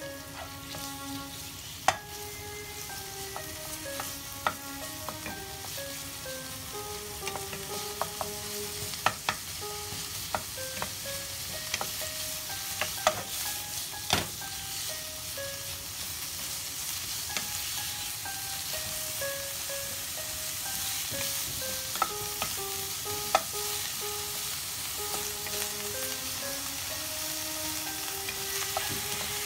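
Sliced pork sizzling in oil in a frying pan while it is stirred with a wooden spatula, which knocks against the pan now and then. A simple background melody plays underneath.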